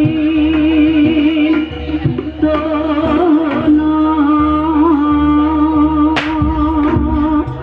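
Live jaranan barongan music: a held, wavering melody line over drum and gong beats, with a sharp crash about six seconds in.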